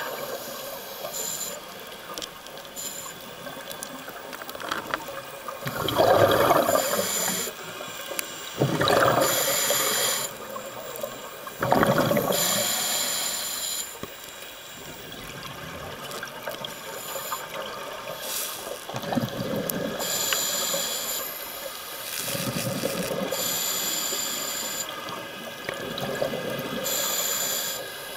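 Scuba diver breathing through a regulator underwater: exhaled air bubbling out in bursts every few seconds, with hissing inhalations in between. The bubble bursts are loudest in the first half and softer later.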